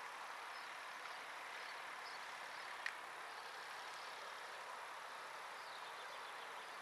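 Quiet rural outdoor ambience: a steady faint hiss with a few faint bird chirps, and one short sharp click about three seconds in.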